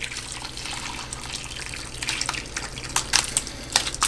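Whey and curds poured from a pot into a cheesecloth-lined strainer: a steady splashing pour, with several sharp splats and knocks in the second half.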